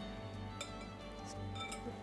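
Background music with steady held notes, over which come a few light clinks of kitchenware.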